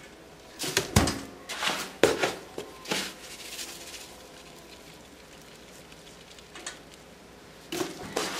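Plastic litter scoop scraping through fine clumping cat litter and being shaken, so the loose grains rattle and pour back through its slots while the urine clumps stay on it. A cluster of sharp scrapes and rattles in the first three seconds, quieter after that, and more scraping near the end.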